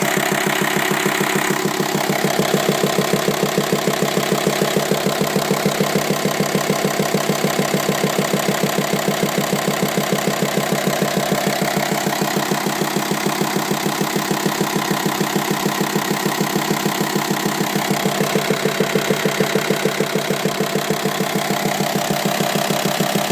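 Volkswagen Multivan T5 engine idling steadily with an extraneous knock, a regular tapping repeating in time with the engine.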